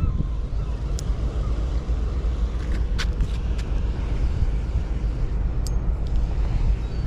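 Steady low rumbling noise, with a few short sharp clicks about one, three and nearly six seconds in.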